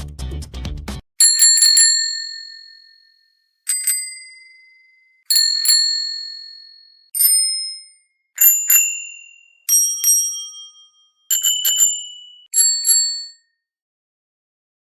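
Bicycle bell rung eight times, each ring a quick rattle of two or three strikes that then rings out and fades; the pitch shifts from one ring to the next. A moment of background music cuts off just before the first ring.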